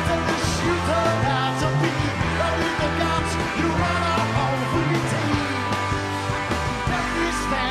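Live rock band playing: electric guitars, bass guitar and drums, with a male lead singer.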